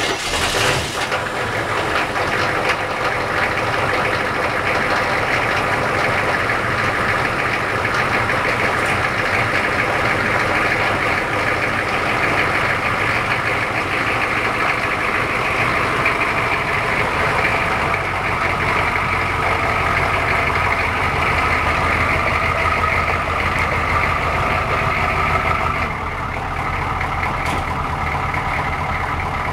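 1984 Chevrolet Suburban engine idling steadily on a cold start, just caught after sitting for weeks. Near the end the idle settles a little lower and quieter.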